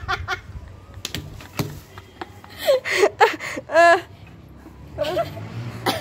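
Short exclamations from people's voices between quiet stretches, with two sharp clicks a little after a second in.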